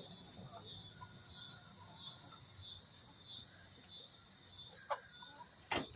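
High-pitched insect chorus droning and pulsing about once a second, with a single sharp click near the end.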